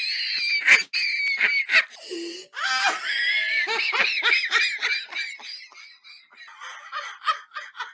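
A woman laughing hard, high-pitched at first and loudest in the first few seconds, then trailing off into shorter, quieter chuckles near the end.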